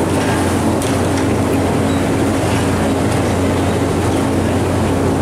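Steady low roar and hum of a cooking stove's burner under a large kadai, with hot oil sizzling as chegodi rings deep-fry.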